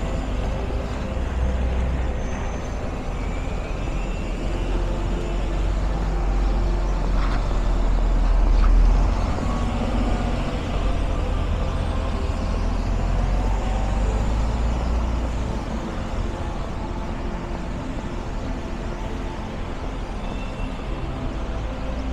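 City street traffic: vehicles running and passing on a rain-wet avenue, a steady low rumble that swells to its loudest about nine seconds in.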